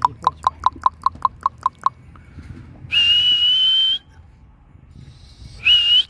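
A person clicking their tongue rapidly, about ten clicks, then whistling one loud, high, slightly rising note for about a second, and a second short whistle near the end. These are calls to catch a Gir cow's attention so she lifts her head and ears.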